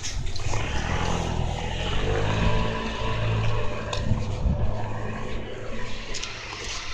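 A motor vehicle running close by on the street, its engine hum loudest around the middle, with a couple of sharp clicks.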